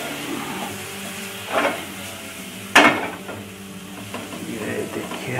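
Onion and spice masala sizzling in a nonstick frying pan as a silicone spatula stirs and scrapes it. Two sharp knocks of the spatula against the pan, the louder one about three seconds in.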